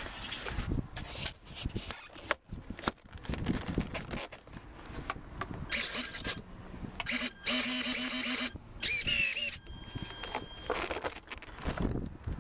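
Handling noise on a small video camera mounted on a model plane: irregular knocks, scrapes and rubbing, with a stretch of high squeaks and squeals in the middle.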